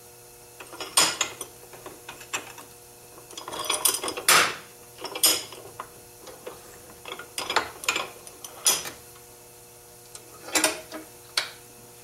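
Irregular metal clanks and rattles from a steel truck door hinge being handled in a cast-iron bench vise and the vise being moved, loudest about four seconds in.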